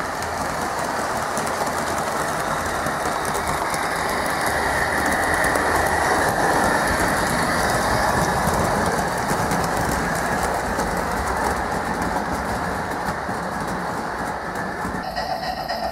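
Gauge 1 model train (a diesel locomotive pulling wooden-kit wagons) rolling along the track, its wheels clattering steadily over the rails. The sound swells as the train passes close, then eases off as it moves away.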